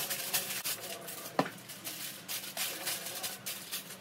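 Aluminium foil crinkling and rustling as a sheet is handled and shaped, in irregular crackly bursts, with a single sharp tap about a second and a half in.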